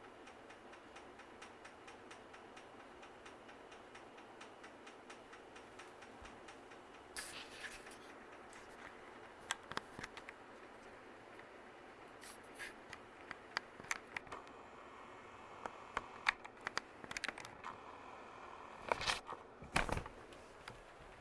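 Harbor Breeze Troches 36-inch ceiling fan running on high speed: a steady whir with a faint, evenly spaced ticking. From about seven seconds in come scattered sharp clicks and scrapes, with a loud cluster near the end.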